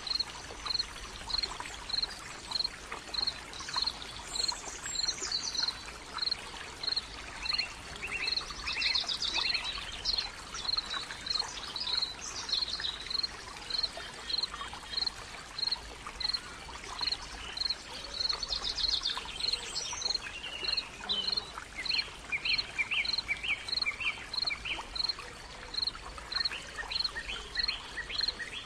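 Wild birds singing: a short high note repeated evenly about three times every two seconds throughout, with other birdsong phrases now and then, over a steady hiss.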